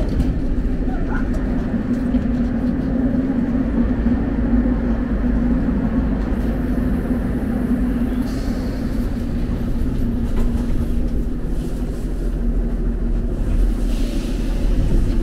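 Subway train running, heard from inside the carriage: a steady rumble with a low, droning hum.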